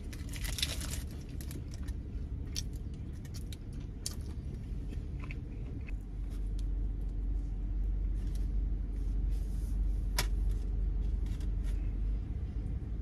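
Paper wrapper crinkling as a burrito is handled, loudest about a second in, with scattered small clicks and rustles, over a steady low vehicle rumble that grows louder about halfway through.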